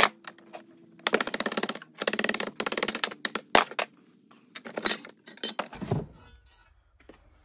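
Metal rattling and clinking as the spring-loaded hinge of a lawn tractor's discharge chute is worked apart in a bench vise, a long steel rod driven through the hinge and its coil spring. Two rapid rattling runs of about a second each, then a few separate clinks.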